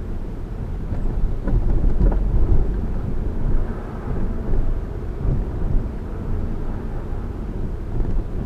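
Road and drivetrain rumble heard from inside the cabin of a moving 2011 Honda Civic, with a few knocks about one and a half to two seconds in. These are the clunks from the front nearside suspension that come over bumps and potholes, for which the owner found no obvious cause.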